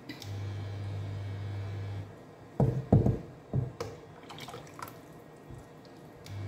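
Meat stock poured from a bowl into a steel pot of tomato and onion stew while a spatula stirs it, with a few loud knocks of the spatula against the pot near the middle and light splashes after. A low steady hum cuts in just after the start, stops about two seconds in, and returns near the end.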